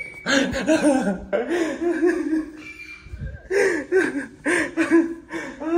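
A young man laughing hard, in repeated bursts of laughter with a short lull about three seconds in.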